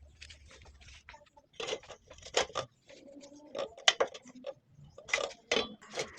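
Irregular sharp knocks and clinks of hand tools and wood being handled and worked, some strokes louder than others.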